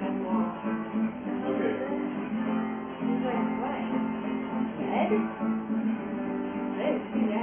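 Acoustic guitar playing, its notes ringing on steadily.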